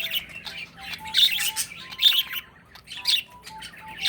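Pet bird chirping in a cage: a series of short, high chirps about once a second, with fainter held whistle notes between them.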